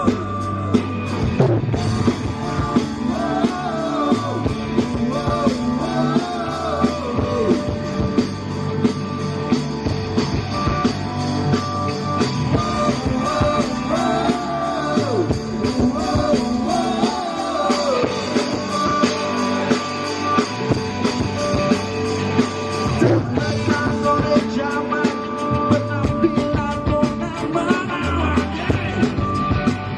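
Rock band playing a song with a singer, drums and guitars, loud and steady throughout.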